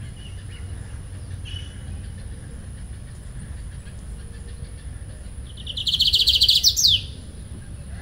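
Lined seedeater, a young male, sings one short song about six seconds in: a fast trill of evenly repeated high notes ending in a quick slurred note, a little over a second long. It is only a short phrase, without the full 'virada' that he has not yet been heard to give.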